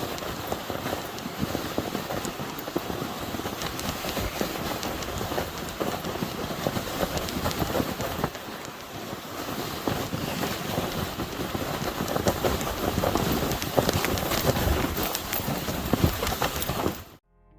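Steady crunching and scraping over snow, with wind on the microphone, cutting off suddenly near the end.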